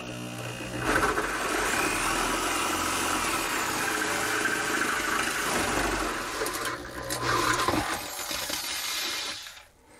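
Corded electric drill boring a large hole through plywood with a wide bit, its motor running under load. It dips briefly near seven seconds and stops shortly before the end.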